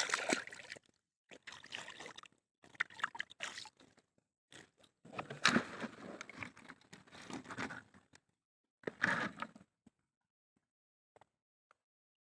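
Water splashing and sloshing in about six irregular bursts, with silent gaps between them and none in the last two seconds.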